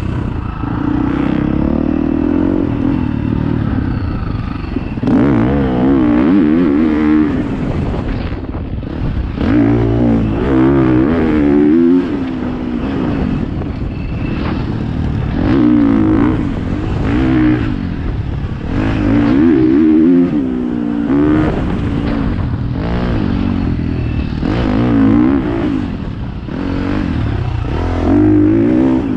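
Dirt bike engine revving up and easing off again and again, roughly every four to five seconds, as the bike is ridden.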